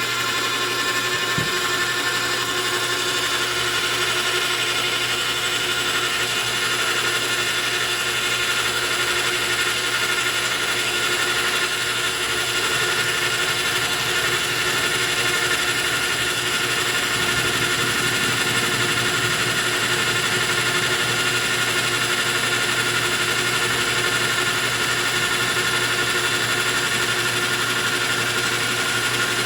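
Metal lathe running steadily at speed with a constant many-toned whine, face milling a flat on a copper bolt, taking a pass of about ten thousandths of an inch.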